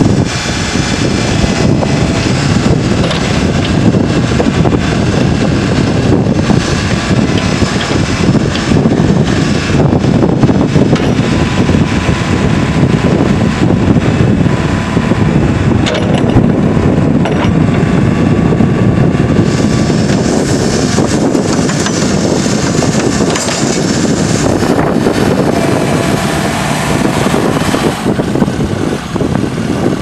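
Case 4.5-litre four-cylinder turbo diesel of a 2012 Case 580 Super N backhoe, running steadily while the backhoe boom and bucket are worked.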